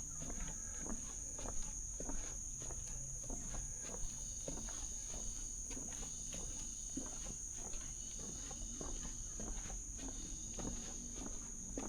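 A steady, high-pitched drone of rainforest insects, with irregular crackling steps through leaf litter along the forest floor.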